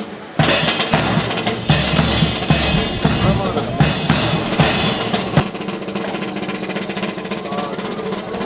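Drum-led music with a steady bass- and snare-drum beat accompanying a military rifle drill. A few sharp cracks stand out over it in the first five seconds, after which the music runs on more evenly.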